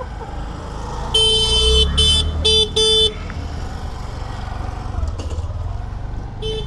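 Vehicle horn honking: one longer blast and then three short ones in quick succession, with one more short beep near the end, over a low engine idling underneath.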